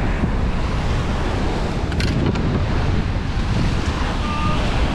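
Ocean surf washing ashore with wind buffeting the microphone, a steady rushing noise strongest in the low end, with two faint clicks about two seconds in.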